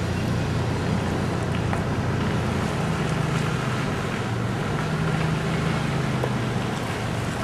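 Steady engine hum and road noise inside the cab of a 2004 Toyota Tacoma pickup on the move, with some wind noise.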